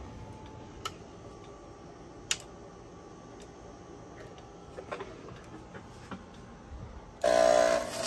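Fog machine firing about seven seconds in: a sudden loud buzz from its pump with a hiss of fog jetting out. Before that, only faint room noise and a few light clicks.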